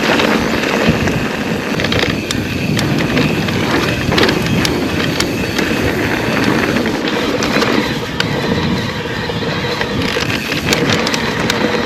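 Electric mountain bike rolling along a rough trail: steady tyre noise with frequent sharp rattles and clicks from the bike, and wind buffeting the microphone.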